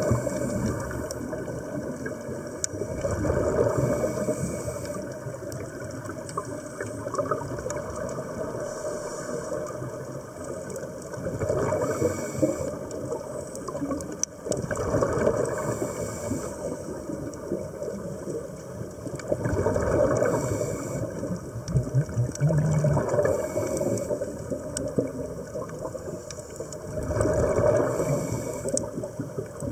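Underwater breathing through a scuba regulator: exhaled air bubbles gurgling in bursts every few seconds over a steady underwater water noise.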